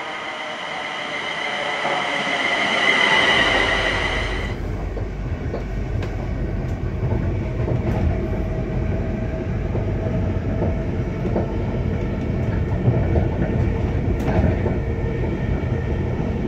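A ScotRail Class 380 electric multiple unit approaching along the platform, its high whine growing louder. After about four and a half seconds the sound changes abruptly to the low rumble of the train running at speed, heard from inside, with a few clicks of the wheels over the rail joints.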